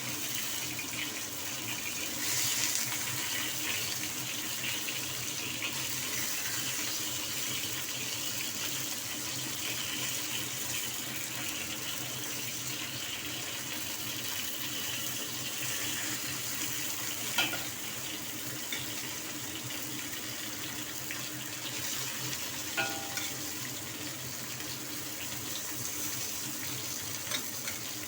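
Bell peppers stuffed with ground fish paste frying in hot oil in a wok: a steady sizzle, with two brief sharp taps past the middle.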